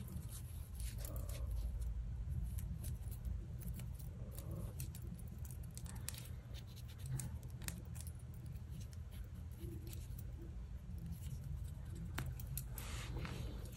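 Scattered light clicks and scrapes of a small metal padlock being handled and rubbed clean, over a faint steady low hum.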